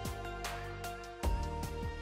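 Background music: held instrumental tones over a beat of sharp percussive hits and a low bass.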